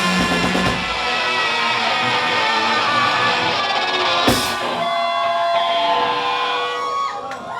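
Live rock band closing a song. The drums and bass drop out about a second in, leaving electric guitar chords ringing on, with a single sharp hit a little after four seconds; the sound thins out near the end.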